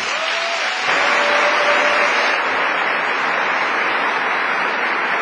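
Audience applauding, swelling about a second in and then holding steady.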